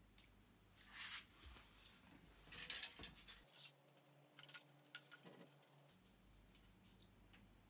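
Faint clicks and light metallic rattles of a handheld Yagi radio-tracking antenna being picked up and handled, in a cluster of sharp ticks from about halfway through, after a soft rustle about a second in.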